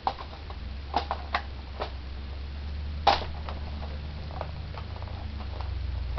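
Airsoft AK-47 shooting BBs at a target: scattered sharp clicks at irregular spacing, the loudest about three seconds in, over a low steady hum.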